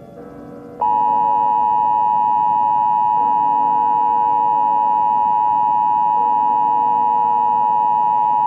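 Emergency Alert System two-tone attention signal: two steady tones near 853 and 960 Hz sounding together. It starts about a second in and holds for about eight seconds, over a faint steady hum.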